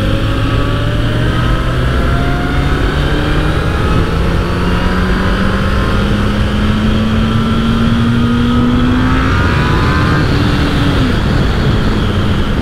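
Honda CBR900RR Fireblade's inline-four engine pulling under throttle as the bike accelerates. Its pitch rises steadily for about nine seconds, then drops about ten seconds in and runs on steadier.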